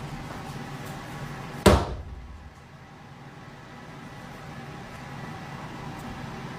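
A single loud bang, like a door or cupboard knocking shut, about two seconds in, over faint steady background noise.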